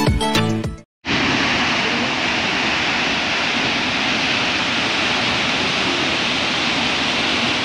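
Waterfall and the rocky creek below it, a steady, even rush of falling water that starts suddenly about a second in.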